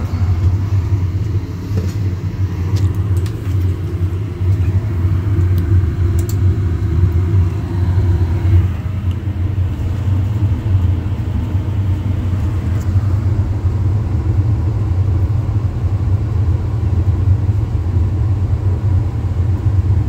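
Lennox 90% upflow gas furnace running, a steady low rumble.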